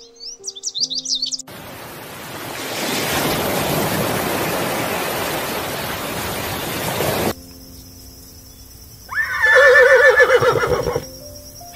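Birds chirping briefly, then about six seconds of loud, steady rushing noise, then a horse whinnying for about two seconds near the end, with a trembling, wavering call.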